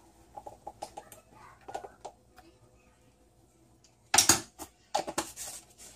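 Kitchen handling noise from a spice jar and plastic measuring spoons: faint small clicks at first, then a few loud, sharp clacks a little after four seconds and again about a second later.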